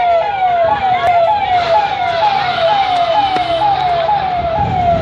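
Police vehicle siren wailing in a fast repeating pattern: each cycle jumps up and then glides down, about twice a second.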